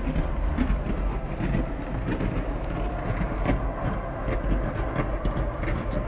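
Distant fireworks barrage: a continuous low rumble of many overlapping booms with rapid crackling on top.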